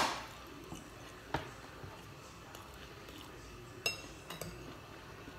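Metal cutlery clinking against ceramic plates during a meal: a few sharp clinks with short ringing, the first the loudest, others about a second and a half and four seconds in.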